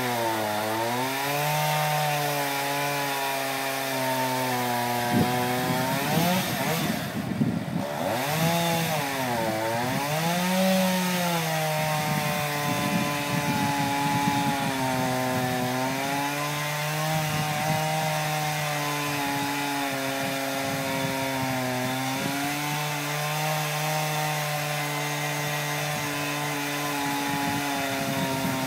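Chainsaw cutting through a large tree trunk to fell it, running continuously under load. Its pitch dips and recovers several times in the first half as the chain bogs down in the wood, then holds steady.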